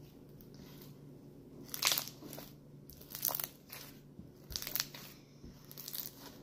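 Homemade slime being stretched and squeezed by hand, giving a string of irregular crackling noises, the loudest about two seconds in.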